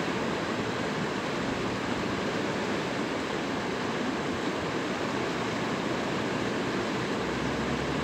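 Fast-flowing water rushing and churning in whitewater rapids past bridge pilings: a steady, even rush.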